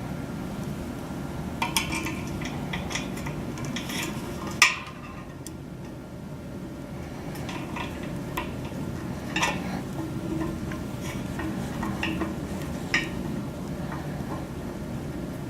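Small metal clicks and clinks of a screwdriver and set screws being worked into the antenna feed and dish, with light handling rubs between them. The sharpest click comes about four and a half seconds in.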